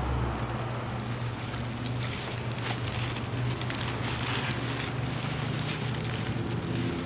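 Paper sleeves and rose stems crinkling and rustling as a bunch of roses is handled, in irregular crackles, over a steady low hum.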